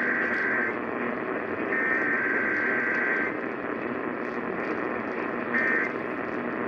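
Emergency Alert System SAME data bursts, harsh two-tone buzzing: one ends just after the start, a longer one runs from about two to three seconds in, and a short one comes near the end. They sit over a steady hiss of radio static.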